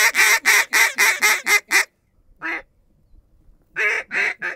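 A hunter blowing a duck call: a fast run of about ten loud quacks that stops a little under two seconds in, a single quack, then another quick run starting near the end.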